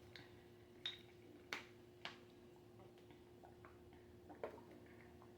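Near silence with a faint steady hum and a few faint, short clicks spread over the seconds, the kind of mouth sounds made while chewing spicy chicken.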